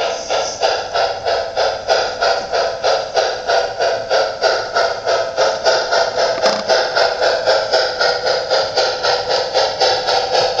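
HO-scale model freight train running along the track: a steady, even pulsing about three times a second over a constant hum.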